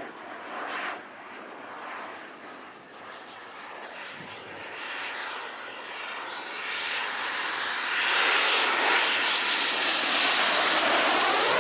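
SAAB Gripen C fighter's Volvo RM12 turbofan in a fast flyby: a jet rush that grows louder through the second half, topped by a high whistle that drops in pitch near the end as the jet passes.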